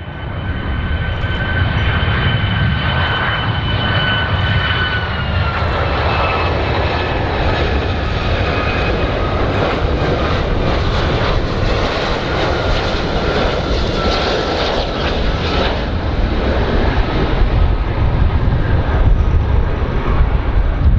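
Boeing 757 jetliner on landing approach: its jet engines whine in two high steady tones over a constant low rumble. The whine drops slightly in pitch about five seconds in and fades out late, leaving the rumble.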